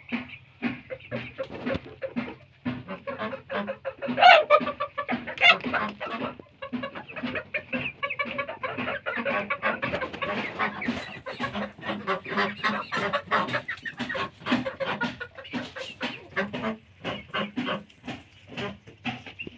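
Chickens clucking continuously, many short overlapping clucks from several birds, with a couple of louder calls about four and five seconds in.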